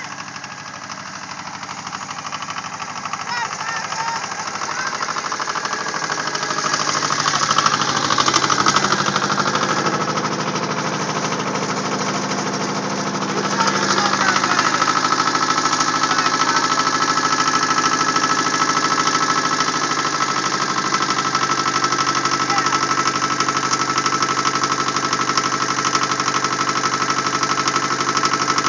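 Yanmar compact tractor's diesel engine running with a steady chugging beat, growing louder as the tractor drives up close, then running steadily right beside it from about halfway through.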